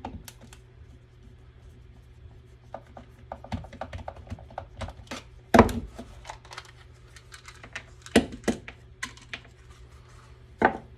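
Parts of a small electric inflator/deflator being handled and worked apart by hand: scattered clicks, scrapes and light knocks, with a few sharper knocks, the loudest about halfway through.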